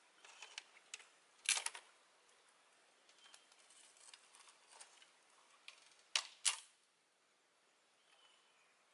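Dry sticks snapped by hand: a quick double crack about one and a half seconds in and two louder cracks about six seconds in, with lighter crackles and snaps between.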